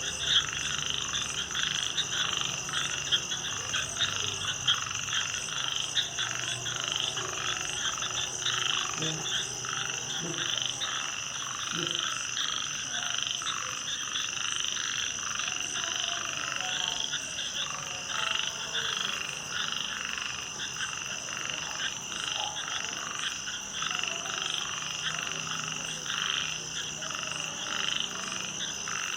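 Frogs calling at night in a dense, continuous chorus of rapid croaks, over a steady high-pitched drone.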